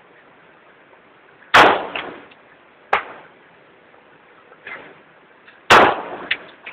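Two loud gunshots about four seconds apart, each trailing off in an echo, with a fainter sharp crack between them and a few small clicks near the end.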